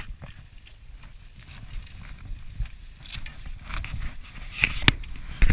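Clatter and knocks of fishing rods and tackle being loaded into a car boot, with a sharp click at the very start and two more sharp clicks near the end.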